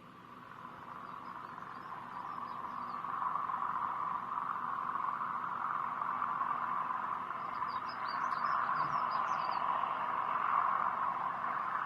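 Recorded train sound effect played from a small MP3 sound module through a small speaker: a steady rushing noise that swells up over the first few seconds, with faint high squeaks over it twice.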